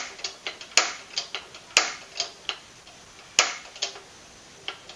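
Piezo ignition knob of a single-burner gas stove being turned, making sharp clicks about a second apart, each followed by a few lighter ticks. The burner has not caught yet.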